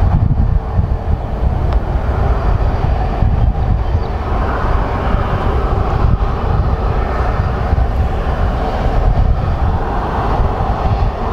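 Airbus A321neo airliner's turbofan engines running as the jet rolls slowly along the runway: a steady, loud rumble with a faint steady tone in it.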